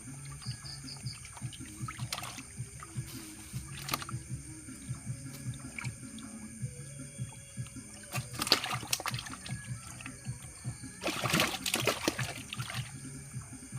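Water splashing and sloshing, with scattered knocks. Two louder splashes come about 8.5 seconds in and from about 11 to 12.5 seconds. Faint background music plays under it.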